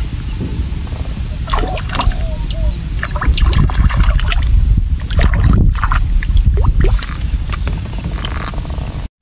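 Fish thrashing and splashing at the water's surface close to the bank, a run of sharp splashes that starts about a second and a half in, is busiest in the middle and dies down near the end. A steady low rumble runs underneath.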